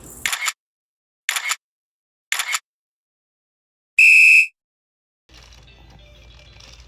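Three camera shutter clicks about a second apart, then a short, loud high-pitched beep about four seconds in. Faint background music comes in near the end.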